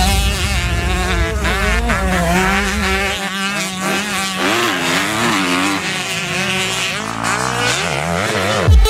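Dirt bike engine revving on a motocross track, its pitch rising and falling again and again with the throttle.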